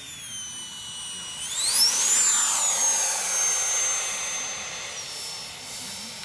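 Radio-controlled model Harrier's jet turbine running, its high whine sweeping sharply up in pitch about a second and a half in as it is throttled up, loudest just after, then holding a steady high whine as the model lifts off and climbs.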